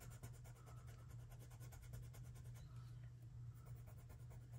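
Faint scratching of a Prismacolor black colored pencil being worked across Fabriano Artistico watercolor paper, laying down a thick dark layer, over a low steady hum.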